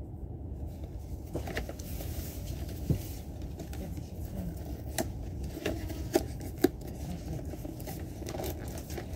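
A cardboard phone-stand box handled and opened by hand: scraping and crackling of the packaging with several sharp clicks, over the steady low rumble of a train carriage.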